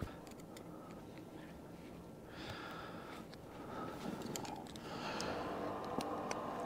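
Quiet hand work on steel: a few faint, light clicks of pliers against the coupler, with short soft breaths or rustles.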